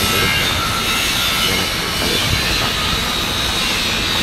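Steady, loud machine drone with a hiss, unbroken throughout.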